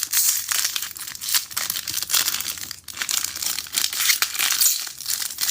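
Foil wrapper of a baseball card pack being torn open and crinkled by hand: a dense run of rapid crackling.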